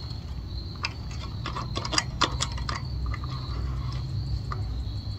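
Small metal parts clicking and ticking irregularly, a few times a second, as the front axle's end cap is turned by hand on its thread to finger tight.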